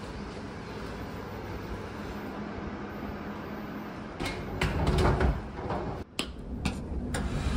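A wooden room door opened by its lever handle: a rustle of movement, then several sharp clicks of the handle and latch, after a few seconds of steady low background noise.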